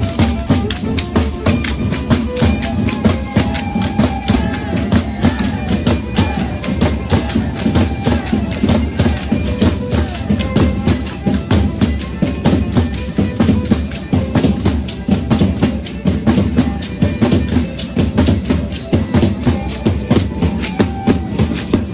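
Matachines dance music: a violin melody over a fast, steady percussive beat of drum and sharp clicking rattles.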